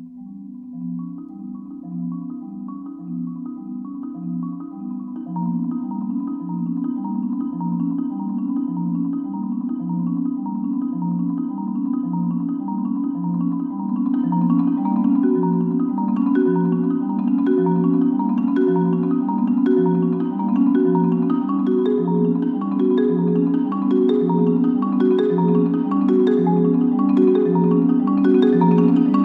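Solo Yamaha concert marimba played with four mallets: a fast, repeating pattern of low notes, with higher notes joining about five seconds in and again around the middle. The playing grows steadily louder.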